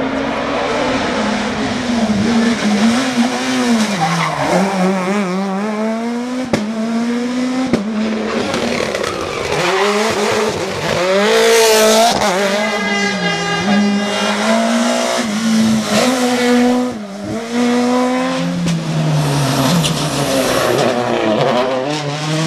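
Rally car engines revving hard, the pitch climbing and dropping through gear changes and lift-offs. One car passes close, loudest about twelve seconds in.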